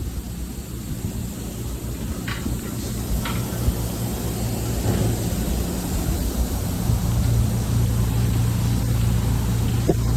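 An engine running steadily with a low hum, growing gradually louder, with a couple of faint clicks about two and three seconds in.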